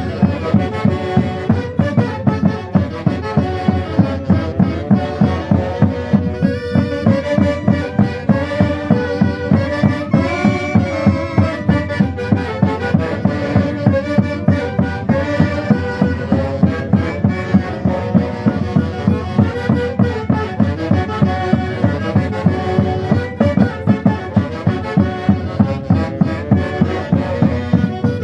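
Andean folk music from a Peruvian festival band, with wind instruments playing a melody over a steady, driving beat of about two strokes a second.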